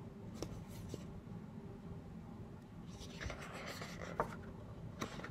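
A picture book's page being turned by hand: paper rubbing and sliding about three seconds in, with a few light taps of the book being handled.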